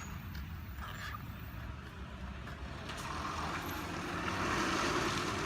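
Road-vehicle noise over a steady low rumble: a vehicle swells up from about halfway in and is loudest near the end, as if passing close by.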